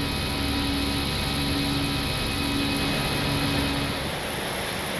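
Steady flight-deck noise of an Airbus A319 climbing after takeoff, with a low hum that comes and goes about once a second and stops about four seconds in.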